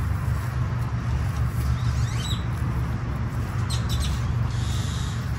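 Birds chirping a few times, short quick calls, over a steady low rumble.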